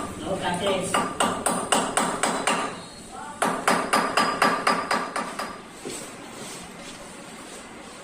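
A hammer striking quickly, about three to four blows a second, in two runs with a short break about three seconds in; the blows die away after about five and a half seconds.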